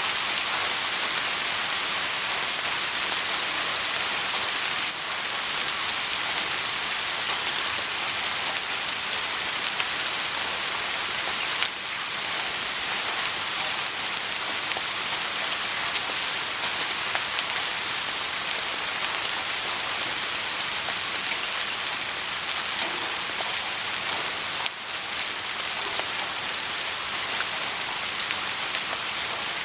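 Soft rain falling steadily: an even hiss of many small drops, with no thunder.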